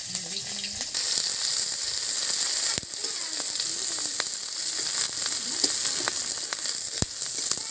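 Sliced onion and green chillies sizzling in hot oil in a metal wok, growing louder about a second in. A flat spatula stirs them and scrapes against the pan, with a couple of sharp clicks of metal on metal.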